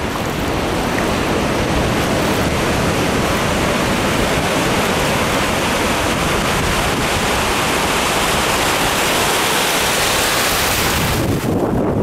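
Pacific surf washing over a flat sandy beach, a steady hiss of water with wind buffeting the microphone. Near the end the hiss grows brighter, then falls off suddenly.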